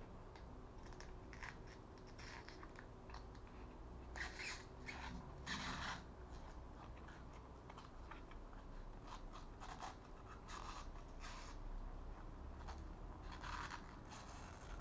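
Thin foam glider pieces rubbing and scraping against each other as they are handled and slid into their slots, in short, irregular scratchy strokes.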